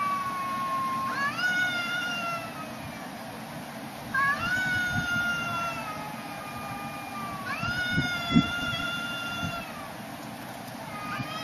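Domestic cat caterwauling: a run of long, drawn-out yowls, each rising sharply, then held and slowly sagging over about two seconds, about four in all; this is the threat wail of cats squaring off before a fight. A brief thump comes about eight seconds in.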